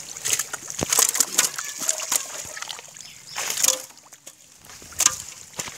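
Live carp thrashing in a pot holding a little water, with irregular wet slaps and splashes. The flapping comes in bursts, with a short lull about four seconds in.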